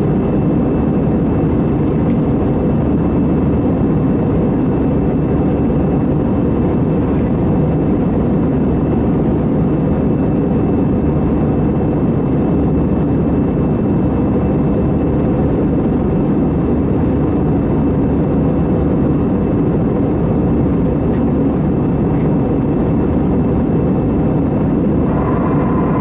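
Steady cabin noise of an Airbus A320 in flight, heard from a window seat: the drone of the jet engines and rushing airflow, with a thin steady high whine over it.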